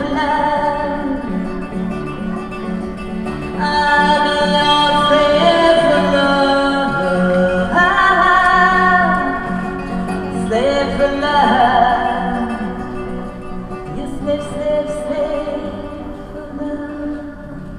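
A woman singing long held notes that bend and waver, to her own strummed acoustic guitar, growing quieter near the end.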